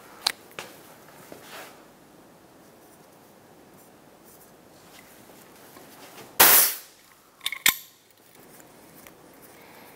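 A hand-held compression tester's gauge vents its held pressure in one short, loud hiss of air, resetting the needle after the reading. About a second later come two or three sharp clicks as the gauge and hose fitting are handled.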